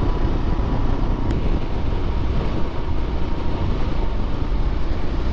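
Motorcycle running steadily while under way, with engine and road noise continuing without a break.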